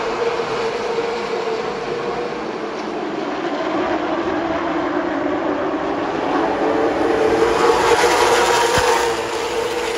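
A field of V8 stock cars running around the short track in a group, their engines blending into one steady drone. It grows louder and rises in pitch a few seconds in as the pack passes close by.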